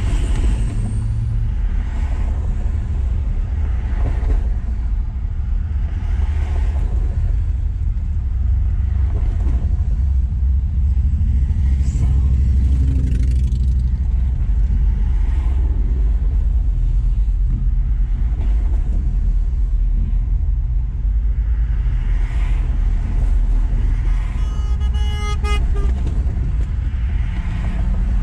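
Highway traffic passing close by: cars, trucks and motorcycles going past one after another over a steady low rumble. A horn honks in a quick series of beeps about 25 seconds in.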